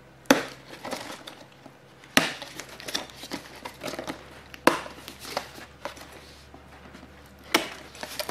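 Cardboard box being handled and opened by hand: rustling and scraping of cardboard and paper as the box is turned and its flaps pulled open, with four sharp knocks a few seconds apart.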